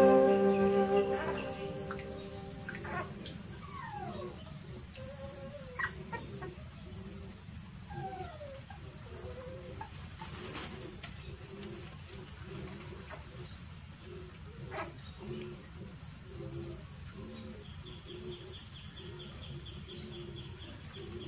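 Steady high-pitched chorus of crickets or other insects, with a few short falling whine-like calls and a faint low pulsing about twice a second.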